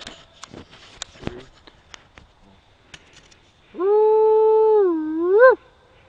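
One drawn-out coyote-type howl, about two seconds long. It holds a steady pitch, dips, then rises sharply before breaking off. Light scattered clicks come before it.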